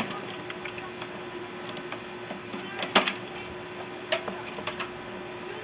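Sharp clicks and knocks of parts and tools being handled while a microwave is taken apart: two louder knocks about three and four seconds in, a few lighter clicks after, over a faint steady hum.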